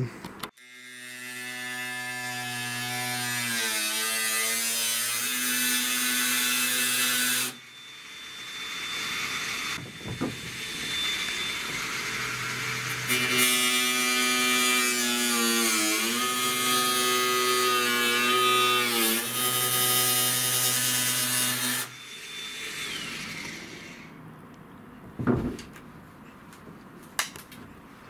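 Angle grinder with a cutting disc slicing through the sheet-steel roof of a van for a vent opening: a high motor whine whose pitch sags each time the disc bites into the metal. It runs in two long cuts, the second starting about halfway through, with a quieter stretch between and a couple of knocks near the end.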